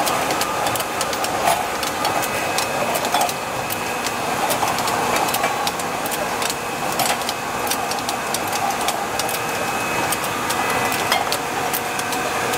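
Rotary glass-bottle filling and ROPP capping monoblock running: a steady mechanical whir with a faint whine, broken by frequent, irregular sharp clicks and clinks of glass bottles moving through the star wheels and capping heads.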